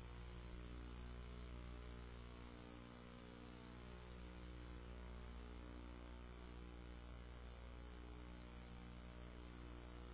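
Faint, steady electrical mains hum with a light hiss, unchanging throughout; no other sound.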